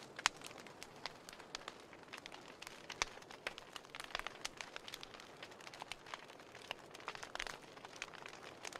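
Wood log burning in a fireplace: irregular crackling and small pops over a soft hiss of flame, with sharper pops about a third of a second in and again about three seconds in.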